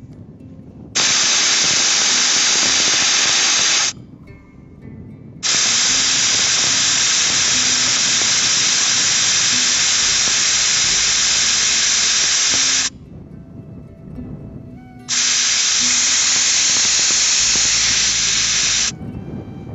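Air hissing out of a Ford Ranger pickup's tyre valve as the tyre is aired down toward about 25 PSI for a larger footprint and better traction off-road. The hiss comes in three long releases, about three seconds, then about seven and a half, then about four, with short pauses between.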